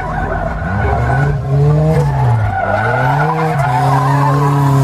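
Racing buggy's engine running hard past and through a corner, its note rising and dipping a few times with the throttle and gear changes, then holding steady. The tyres squeal as it corners.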